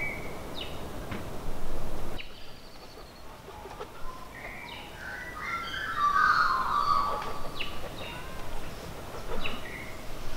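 Wild birds calling: several short, sharp chirps, with a longer warbling call in the middle.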